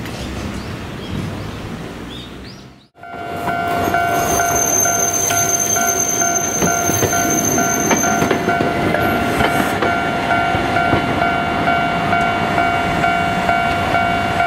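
A level-crossing warning bell ringing, a steady two-pitch electronic tone pulsing in a regular quick rhythm, as a streetcar runs past with wheel-on-rail noise. Before it, about three seconds of street noise end in an abrupt cut.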